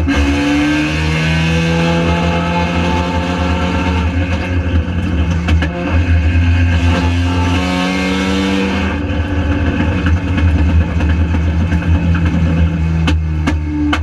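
Spec RX-7 race car's Mazda rotary engine at high revs, pulling hard through a gear just after an upshift. It eases off about nine seconds in, and a few sharp clicks come near the end.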